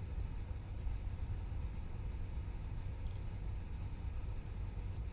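Steady low background rumble with a faint hiss, and a small tick about three seconds in.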